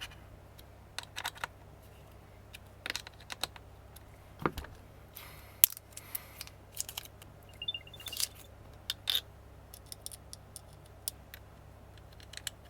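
Small hard clicks and taps of camera rig parts being handled and fitted, as an AirTag holder is attached to a metal camera cage, with a brief faint high chirp about eight seconds in.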